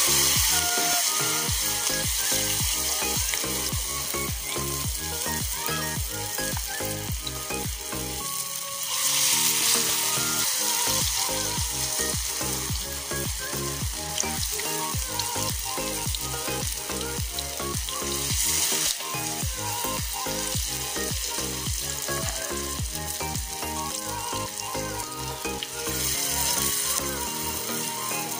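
Ukoy batter of lube-lube leaves frying in hot oil in a wok, sizzling steadily and swelling louder three times; a spatula stirs the fritters near the end. Background music with a steady beat runs underneath.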